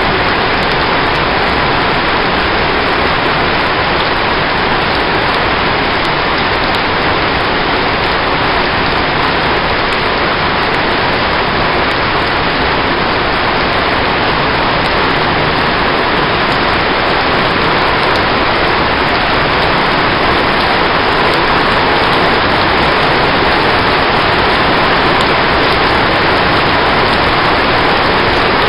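Rain falling steadily: a dense, even hiss with no breaks and no thunder.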